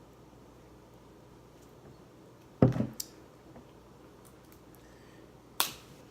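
Crab leg shells being cracked by hand: two sharp snaps about three seconds apart, the first followed by a short crackle of shell.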